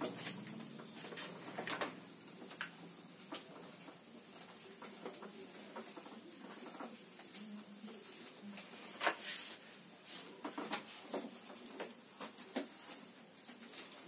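Cloth rubbed across a whiteboard to erase it: faint, irregular swishing strokes.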